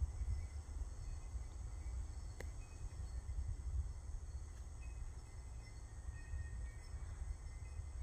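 Quiet outdoor night ambience: a low, uneven rumble with faint short high chirps, and a single sharp click about two and a half seconds in.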